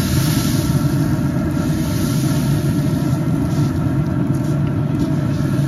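Trigger spray bottle spritzing the ribs with a few short hisses over a steady low rumble.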